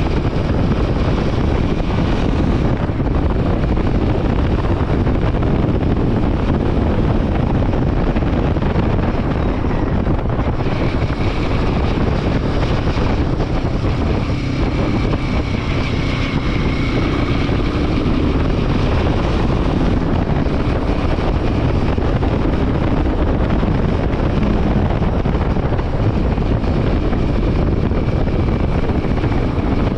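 Royal Enfield Himalayan 450's single-cylinder engine running steadily on the move, mixed with heavy wind rushing over the microphone.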